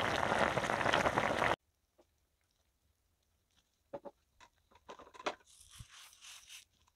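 Pot of braised beef ribs and vegetables boiling hard, a dense bubbling that cuts off suddenly after about a second and a half. After a quiet gap come a few light clicks and knocks against the pot, then a soft patter of sesame seeds sprinkled onto the stew near the end.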